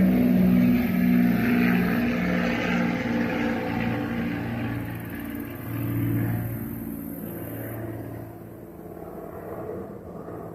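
Jet engine noise from a pair of F-35 fighters' single turbofan engines, loud at first and fading steadily as the jets fly away.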